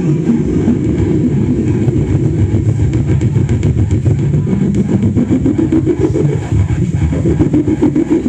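Homemade electronic noise machines played live and amplified: a loud, thick low rumble that wavers constantly, with no beat or clear pitch.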